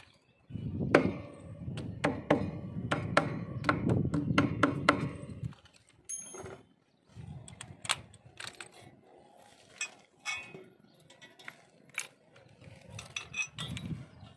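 Tools being handled on a concrete floor. For the first few seconds there is a string of sharp knocks, about two a second, over a low rumble. After that come scattered clicks and clinks of metal tools. No drill motor runs.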